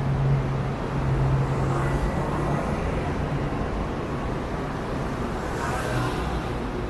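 Street traffic noise with city bus engines running close by: a steady low engine hum fades out about two and a half seconds in, over continuous road noise, with a brief hiss near the end.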